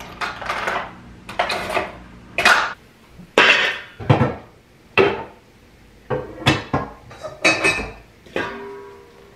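Dishes being put away into a lower kitchen cabinet: a string of separate clinks and clatters as dishware is set down and stacked.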